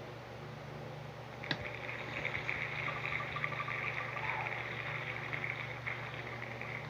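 A tap, then the on-screen spinning wheel's rapid ticking, which slows as the wheel winds down toward a stop. A steady low hum runs underneath.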